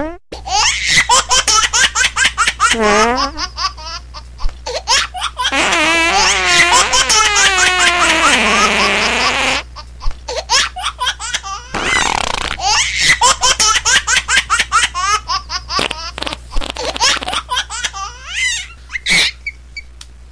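Young men laughing hard in long fits of rapid ha-ha bursts, with a high, wavering laugh drawn out for several seconds around the middle.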